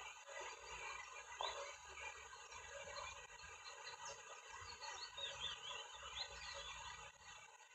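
Faint, high chirping bird calls, with a quick run of falling chirps about five seconds in, over a low rumble.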